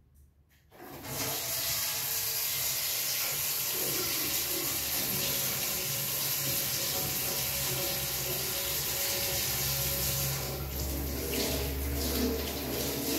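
Kitchen tap turned on about a second in and running steadily into the sink; near the end the rush changes, the hiss thinning and a deeper rumble coming up.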